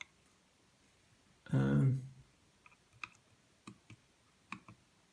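A brief vocal sound, then four or five sharp clicks spread over about two seconds from small hard parts being handled.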